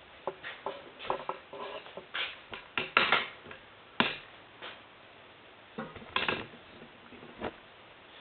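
Scattered knocks, clicks and rustling from moving about and handling things in a small garage, with a sharp click about four seconds in.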